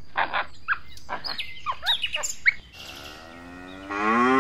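White-faced capuchin monkey giving a string of short, high chirps and squeaks. Then a buffalo lowing: a faint moo that swells into a loud, long, low moo about four seconds in.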